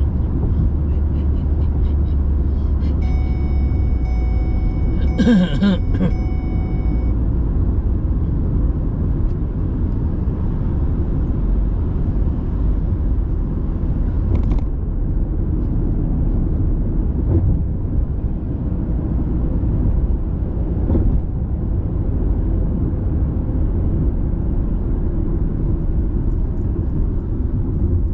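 Road and engine noise inside a moving car's cabin: a steady low rumble while driving at speed. About three seconds in, a steady high tone sounds for roughly four seconds, with a brief voice-like sound in the middle of it.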